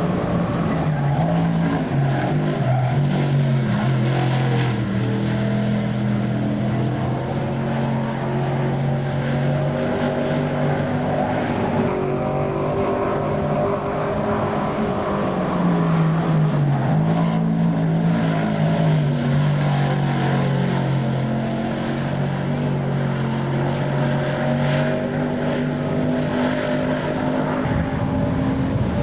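Dirt modified race car's V8 engine running hard at full throttle, its pitch dropping as it comes off the power about two seconds in and again around fifteen seconds, then climbing back up as it accelerates.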